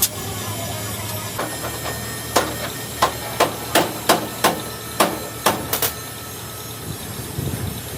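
Hammer blows on the steel of a bent hydraulic jack being straightened: one strike at the start, then a run of about nine sharp, ringing strikes a third to half a second apart in the middle, over a steady low hum.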